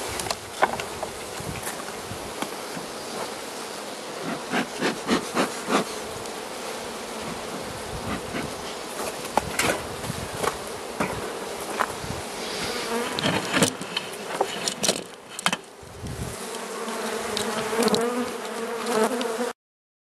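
Carniolan honey bee colony humming steadily in the opened hive, with scattered sharp knocks and taps as the hive is worked. The hum swells near the end, then cuts off abruptly.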